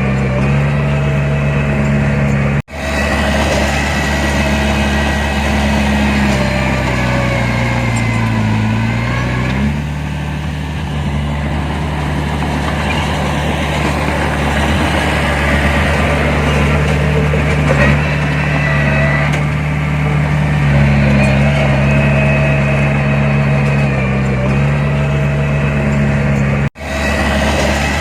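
Heavy diesel engine of earthmoving machinery running steadily. About eight seconds in its pitch sags for a second or two and then picks back up. The sound cuts out for an instant twice.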